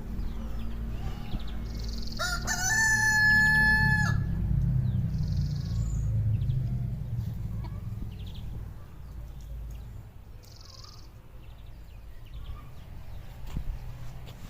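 A rooster crows once, about two seconds in, a single call of about two seconds that rises quickly and then holds. A steady low rumble runs underneath.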